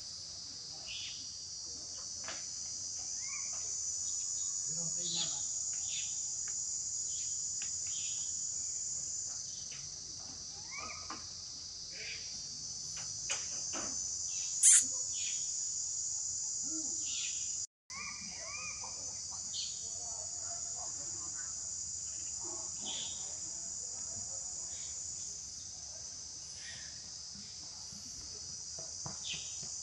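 Steady high-pitched chorus of insects, with scattered short chirps and calls over it. One sharp, louder chirp comes about halfway through, and the sound cuts out for a moment just after.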